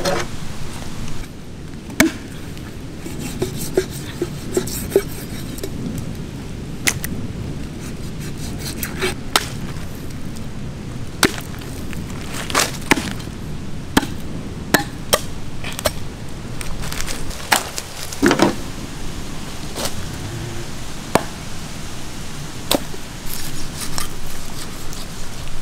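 Heavy knife chopping through eagle ray flesh and cartilage onto a wooden stump block: a long series of sharp, irregularly spaced chops, often about a second apart, with some quicker pairs.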